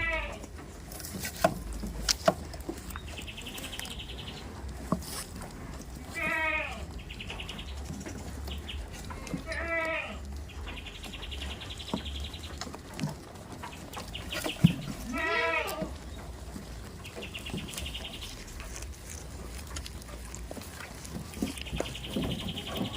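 Goats bleating, about four quavering bleats spaced several seconds apart. Between the bleats come short, high, rapid trills and a few sharp clicks.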